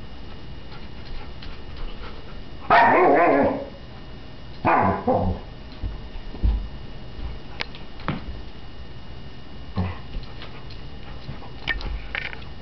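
Alaskan Malamute puppy rooing twice: a loud, drawn-out roo about three seconds in and a shorter one about two seconds later. The rooing comes from her frustration at not being able to pick up a bowling ball. A few light knocks and clicks follow.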